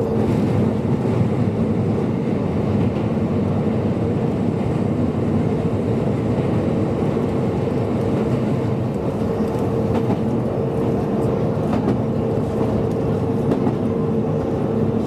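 Kobe Electric Railway electric train running along the line, heard from inside the front cab: a steady rumble of wheels on rail with a steady hum, and a couple of faint clicks from the track later on.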